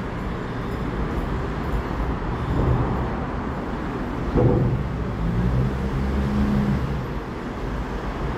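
Steady low rumble of city traffic, with a sudden louder sound about four and a half seconds in, followed by a low held tone for about two seconds.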